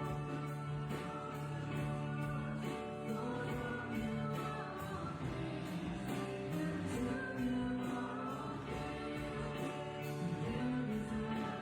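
Group of voices singing a worship song to instrumental accompaniment with a steady beat.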